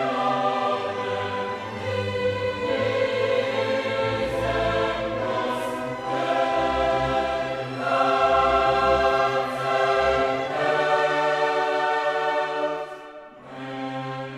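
Background music: a choir with orchestra holding long sustained chords, with a brief drop in loudness near the end.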